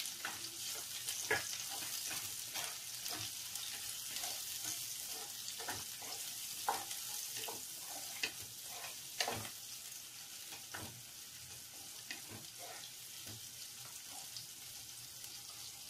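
Chopped green capsicum, onion and garlic sizzling in hot oil in a nonstick pan, with a steady high hiss. A wooden spatula scrapes and taps the pan as the vegetables are stirred, giving scattered clicks, a few of them louder.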